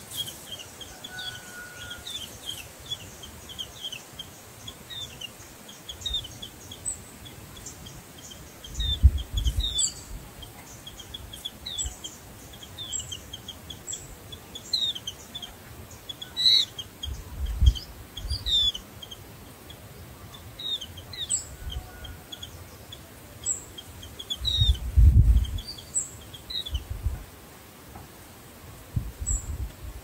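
White-eyes chirping at the nest: a long run of short, high chirps, some quick and twittering. A few low rumbles, the loudest sounds, come about 9, 17 and 25 seconds in.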